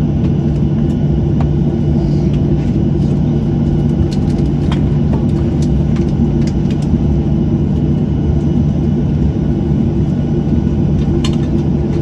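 Cabin noise of a Boeing 737-700 on the ground after landing: a steady rumble and low hum from its engines at idle, with a few faint clicks and rattles.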